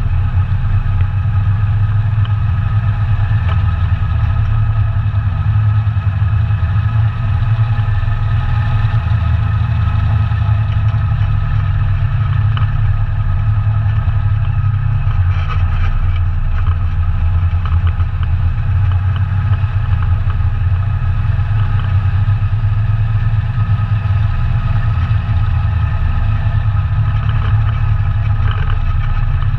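ATV engine running loud and steady at an even speed, its pitch holding level with no revving.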